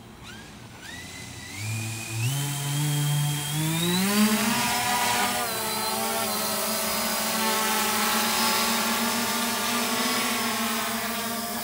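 Multirotor drone's electric motors spinning up: their whine rises in steps over about three seconds as it lifts off, then settles into a steady buzz as it climbs.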